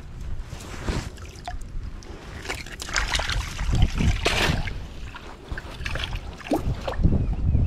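Water sloshing and splashing in a plastic bucket, mixed with irregular rustling and knocks of handling close to the microphone.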